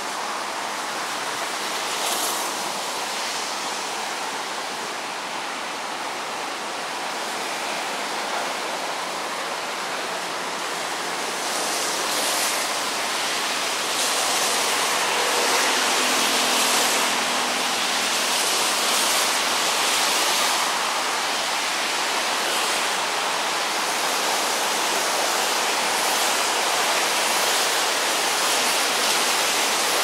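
Steady rushing hiss of water, growing a little louder past the middle.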